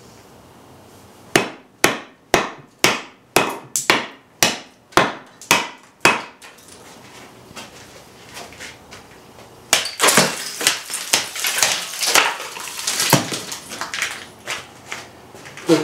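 A hand-forged knife chopping into a block of dry, hard hickory: ten sharp wooden chops, about two a second. After a pause, a flurry of harder chops into a block of ice, with the ice cracking and shattering.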